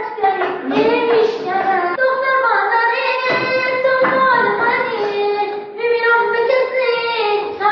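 A child singing a song in Persian, a simple melody of long held notes.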